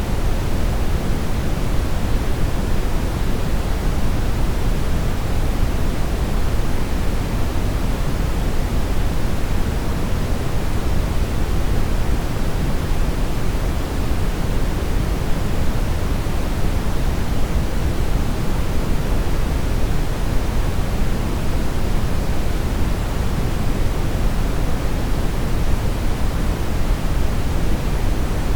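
Television static with no signal: a steady, even hiss of noise, fuller and heavier in the low end.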